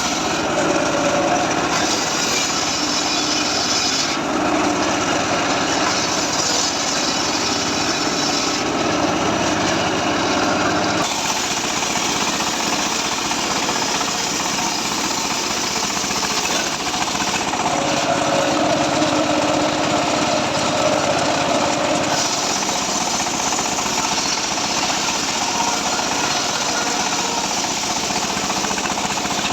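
Homemade circular sawmill cutting teak timber: a continuous loud blade-and-motor noise whose pitch and grain shift every few seconds as the cut goes on.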